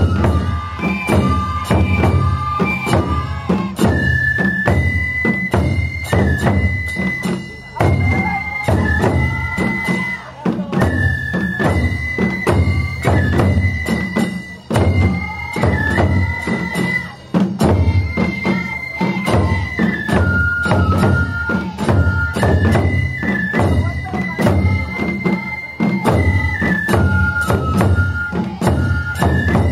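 Japanese festival taiko ensemble: rows of taiko drums and a large barrel drum beaten together in a steady rhythm, several strokes a second, with shinobue bamboo flutes playing a melody of high held notes over them.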